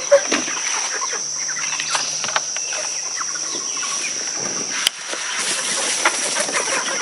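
Chickens clucking over a steady high chirring of crickets, with scattered short clicks and scuffs.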